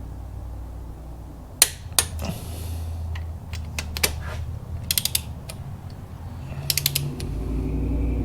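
Click-type torque wrench ratcheting in short bursts of quick clicks, with pauses between, as the nuts on the 2JZ head studs are run down on the first torque pass. One click about one and a half seconds in stands out louder. A steady low hum runs underneath.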